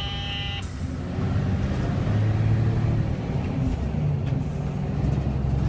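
Low, steady rumble of a vehicle travelling along a road, heard from inside, growing louder about a second in. A brief high tone sounds at the very start, followed by a short hiss.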